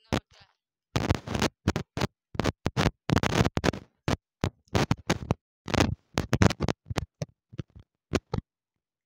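Baked clay (terracotta pot pieces) bitten and chewed: a quick, irregular run of crisp crunches with short silent gaps between them.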